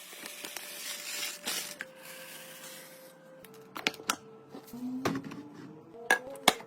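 Food containers and packages being handled and set down while restocking a fridge: a soft hiss at first, then a run of light clicks and knocks of plastic and glass.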